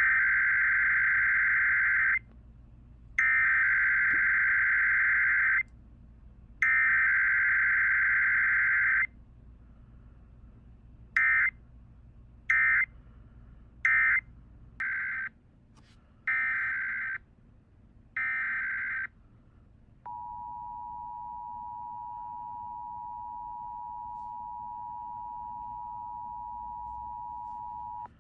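Emergency Alert System SAME header: three bursts of buzzy digital data tones, each about two seconds, then a run of shorter data bursts. Then comes the steady two-tone EAS attention signal (853 and 960 Hz) for about eight seconds, opening a Pennsylvania statewide required monthly test.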